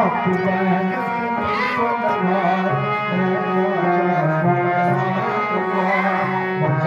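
Instrumental dance music: a melody moving over held low notes, at a steady loud level.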